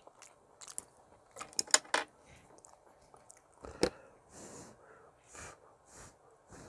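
Eating sounds: wooden chopsticks and a wooden spoon clicking against a plastic container while scooping rice and stew, a cluster of sharp clicks about a second and a half in and one strong tap just before the four-second mark. Then several short breathy puffs.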